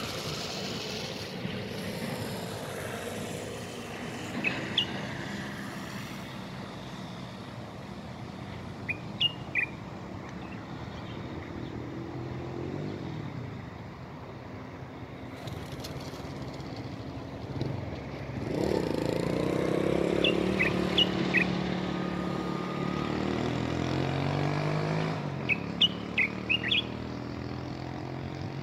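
A small bird giving short, sharp chirps in little clusters every few seconds over the steady hum of road traffic. A motor vehicle passes, louder, about two-thirds of the way through.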